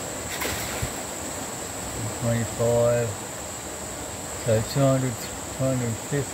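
Insects droning at one steady high pitch, with a few short, low, voice-like murmurs about two seconds in and again in the second half.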